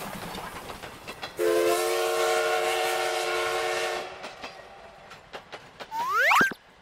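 Train whistle sound effect: a chord of several tones held for about two and a half seconds, followed by a light clickety-clack of wheels over rail joints. Near the end comes a quick, loud rising whistle glide.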